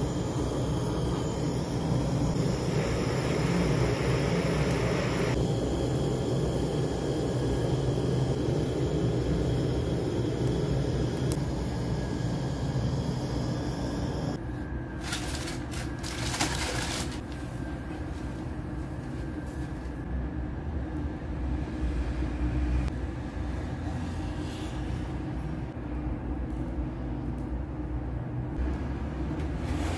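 Handheld gas torch flame hissing steadily as it lights charcoal briquettes. About 14 seconds in, the hiss drops away and a lower rumbling noise remains.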